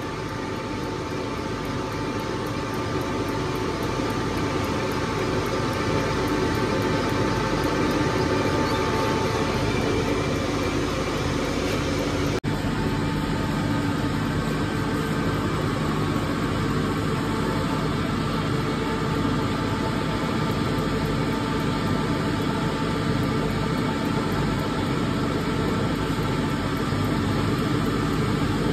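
Hyundai Grand i10 common-rail diesel engine idling roughly, rattling as the firing cuts out and returns, which the mechanic puts down to a faulty injector. The sound changes abruptly about 12 seconds in.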